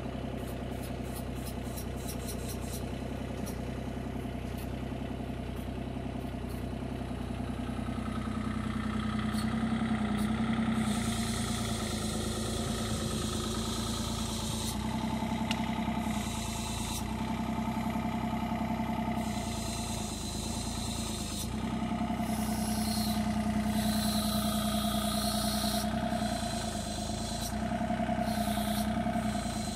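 Compact excavator's diesel engine running, its note rising and falling as the hydraulics come under load lifting a heavy section of concrete block wall, with bursts of hiss in between.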